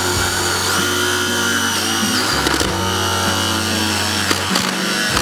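Cordless drill spinning a step drill bit through wooden wall planking. The motor's whine rises in pitch about a second in and drops back about two seconds in.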